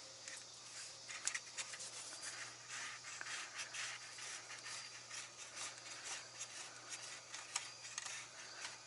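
Faint rubbing and scratching with scattered light clicks, as of parts and hand tools being handled during a truck starter repair, over a faint steady hum.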